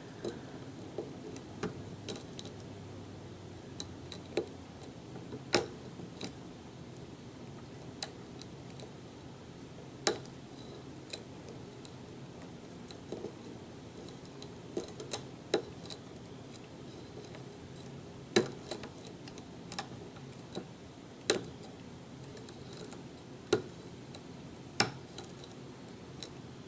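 Metal lock pick working the pins of a pin-tumbler lock on a Kwikset keyway: small sharp metallic clicks and taps at an irregular pace, about one every second or so, as pins are lifted and set against tension.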